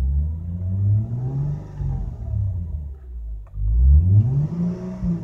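Mercedes-Benz W211's engine revved twice, rising and falling in pitch each time, through an Eisenmann-style quad-pipe exhaust with the stock cats and resonator kept, heard from inside the closed cabin.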